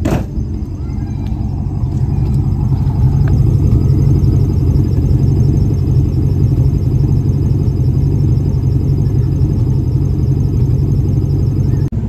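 Ford 302 (5.0-litre) V8 exhaust running steadily, a low rumble at the tailpipe that grows louder over the first few seconds and then holds. The engine sounds fairly smooth, though the owner suspects it still has a misfire. A short click comes at the very start.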